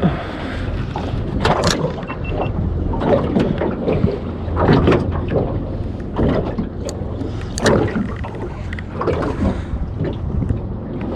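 Water slapping and splashing irregularly against a small boat's hull, every second or so, over a steady low rumble of wind on the microphone.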